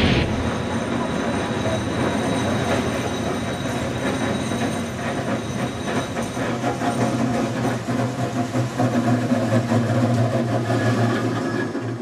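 A New Orleans St. Charles Line electric streetcar running along the track toward the listener and passing close by: a steady rumbling hum with the clicking and rattle of its steel wheels on the rails, growing louder as it nears.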